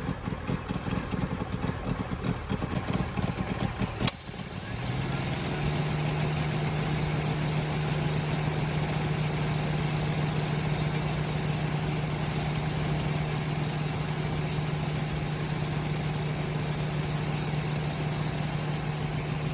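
Suzuki Jimny SJ30's two-stroke three-cylinder engine idling, then about four seconds in a click and a strong steady hum that steps up in pitch and holds: the air-conditioning compressor cutting in and making an abnormal noise, which the owner suspects comes from low compressor oil.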